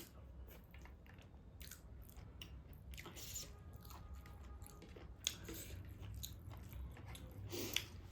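A person chewing a mouthful of taro root and dried meat: quiet, irregular mouth clicks and small wet bites, with one sharper click about five seconds in.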